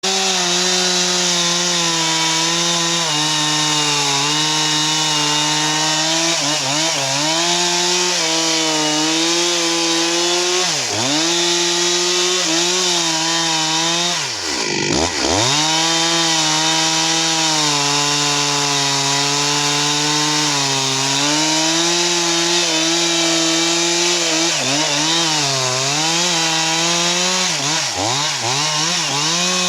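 Stihl two-stroke chainsaw running at high revs as it cuts into a tree, its pitch sagging each time the chain bogs down in the wood. The deepest drop comes about halfway through, followed by a quick rev back up, and the pitch wavers again near the end.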